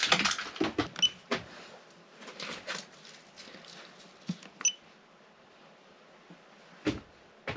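Caravan 12-volt control panel giving short electronic beeps as its touchscreen buttons are pressed: one about a second in and another just before the middle. There are light handling clicks near the start and a single sharp knock near the end.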